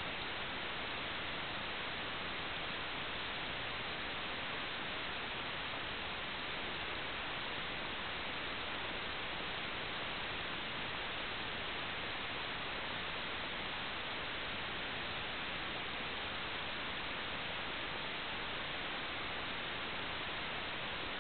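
Steady, even static hiss with no engine or motor tone in it, the kind of hiss heard on the empty audio channel of an analog wireless video downlink.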